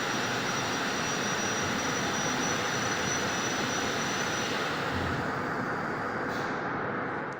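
Steady machine noise, an even rush with a faint high whine that stops about two-thirds of the way through, fading out at the very end.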